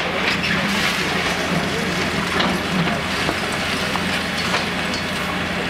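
Diesel engine of a long-reach demolition excavator running steadily, with scattered sharp cracks and knocks as its hydraulic crusher breaks away the concrete of an apartment block.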